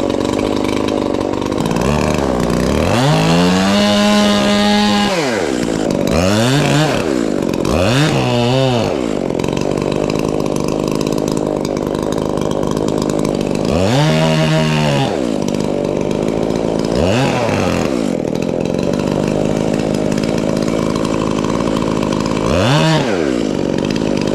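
Chainsaw running at full throttle, making the back cut through a large fir trunk during felling; its engine pitch rises and falls several times as the cut goes on.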